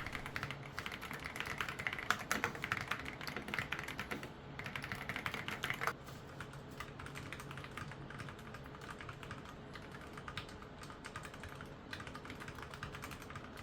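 Fast typing on mechanical keyboards, comparing EPOMAKER Flamingo switches with Gateron Black switches: a dense run of key clicks. The typing is louder for the first six seconds, then turns quieter.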